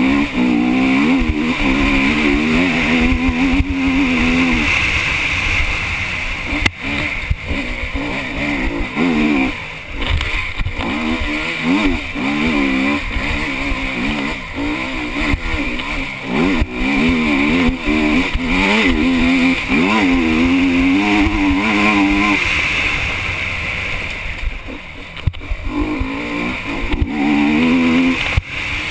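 Honda enduro motorcycle's engine revving hard up and down through the gears, heard from a helmet camera with a steady wind rush. There are occasional sharp knocks from the bike over rough ground. The engine drops back for a few seconds near the end, then picks up again.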